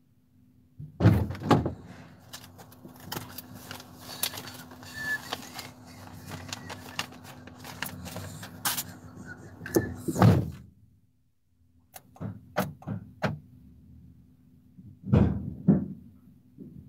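Doors and fittings of a Fiat Ducato van thudding and clattering. There are heavy thuds about a second in, near ten seconds and twice near the end, with rustling and sharp clicks between them.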